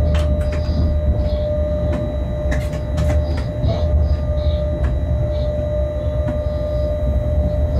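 Locomotive running along the track, heard from its cab: a steady low rumble with a constant whine, and scattered clicks and knocks from the wheels on the rails.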